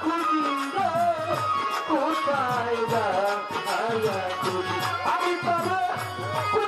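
A solo voice singing a melody with wavering, ornamented pitch, accompanied by hand-drum strokes throughout.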